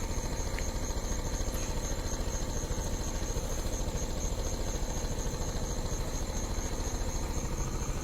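An engine idling steadily, with a faint high-pitched tone pulsing about four times a second over it.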